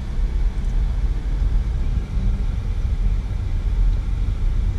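Steady low rumble of a car's engine and road noise heard from inside the cabin as it creeps along in slow traffic.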